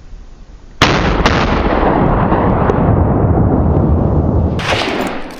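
A hunting rifle shot about a second in, a second sharp crack half a second later, then a long loud rumble that slowly loses its highs over about four seconds.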